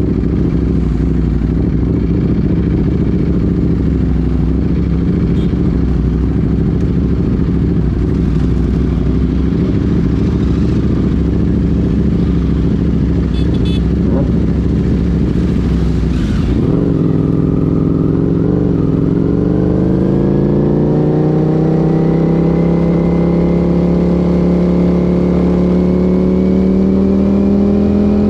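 Ducati Panigale V4's V4 engine idling with a rough, steady rumble. About sixteen seconds in the bike pulls away, and its engine note then climbs smoothly and steadily as it gathers speed.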